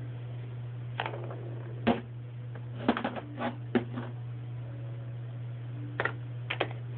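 Irregular light clicks and taps of small plastic toy pieces being handled and set down, bunched in a quick cluster near the middle and again near the end, over a steady low hum.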